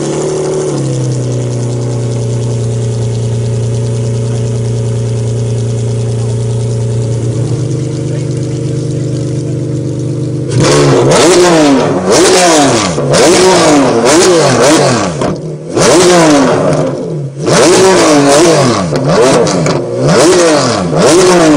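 Straight-piped Ferrari Enzo V12 idling steadily, then from about halfway through revved hard in a string of quick blips, about one a second, each rising and falling in pitch.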